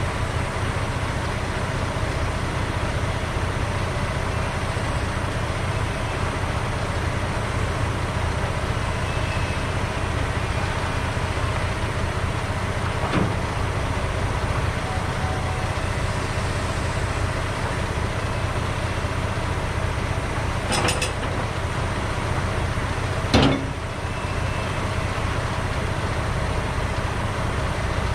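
Log truck running steadily, its engine drone and road noise constant. A few short knocks or rattles come through, the sharpest about two-thirds of the way in.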